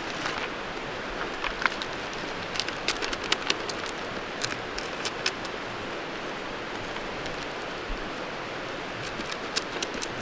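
Dry sheet of roasted seaweed (nori) and its plastic zip-top bag being handled, giving scattered crisp crackles and crinkles in clusters, with a quiet stretch in the middle, over a steady background hiss.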